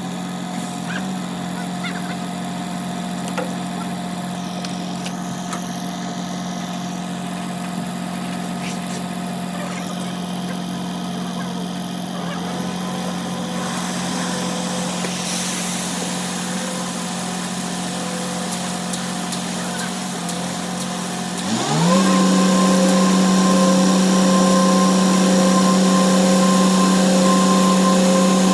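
A machine's engine running steadily, then revving up quickly about three-quarters of the way through and holding at a higher, louder speed.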